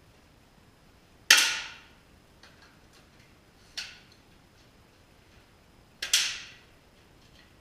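Air rifles fired offhand, three shots: a loud crack about a second in, a quieter one near four seconds and another loud one at about six seconds. Each shot echoes briefly in the low concrete basement range.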